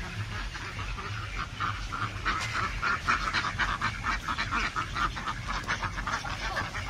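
A flock of domestic ducks quacking, many short rapid quacks overlapping, busiest in the middle.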